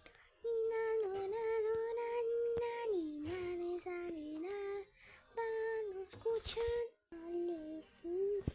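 A child singing a simple melody alone, in held notes that step up and down, with short breaks about five and seven seconds in.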